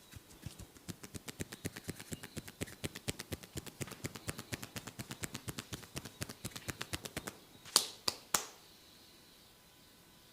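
Hands tapping rapidly and rhythmically on a person's head during a head massage, about six taps a second, for roughly seven seconds. The tapping stops, and three sharp, louder cracks follow in quick succession.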